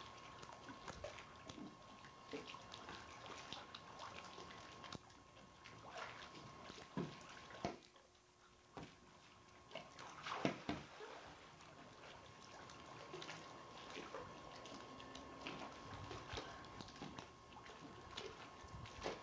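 Pool water splashing and lapping as swimmers move and bat a ball about, scattered small splashes with the loudest cluster about ten seconds in. A faint steady tone runs underneath.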